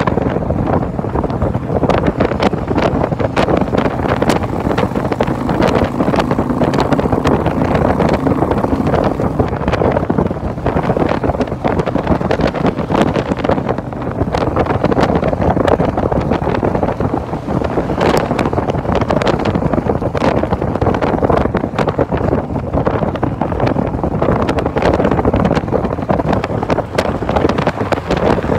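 Heavy wind buffeting the microphone at freeway speed on a Harley-Davidson motorcycle, with the engine and road noise running steadily underneath.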